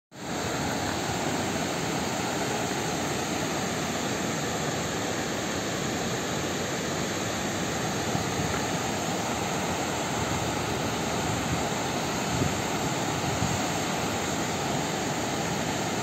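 River water pouring over a low concrete weir and rushing through rocky rapids, a steady, unbroken rush of water.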